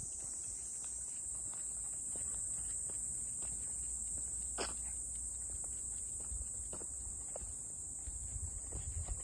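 Steady high-pitched drone of insects, with scattered light ticks of two Cavalier King Charles Spaniels' claws and footsteps on an asphalt path, one sharper click about halfway through.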